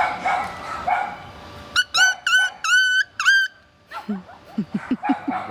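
Dogs barking repeatedly. About two seconds in come five short, high-pitched yelps, each rising at the start, and then a run of lower, short whining calls.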